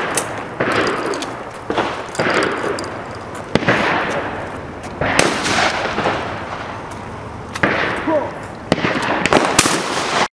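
12-gauge shotgun shots firing birdshot at clay targets: about ten bangs at irregular spacing, each trailing off in a long echo, and the sound cuts off abruptly near the end.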